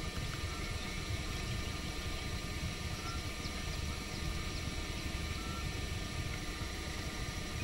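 Steady running noise of a vehicle on the move: an even low rumble with a hiss over it.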